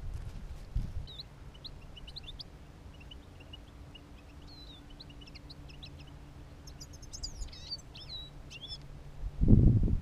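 Small finches chirping and twittering in quick, high notes, with a faint steady low hum underneath. A short, loud low rumble comes near the end.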